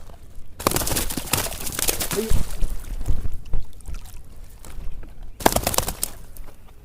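Water splashing and sloshing in irregular bursts: one long stretch, then a shorter burst near the end.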